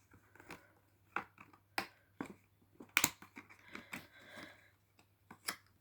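Advent-calendar box and packaging being handled: scattered faint clicks and taps, the loudest about three seconds in, with a short rustle around four seconds.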